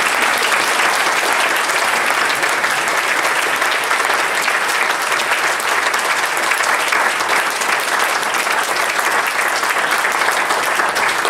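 Audience applauding, a dense steady clapping from a roomful of seated listeners at the close of a talk.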